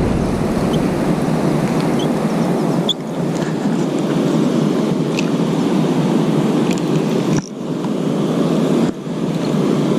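Steady rush of whitewater river rapids, a loud even noise that dips briefly three times.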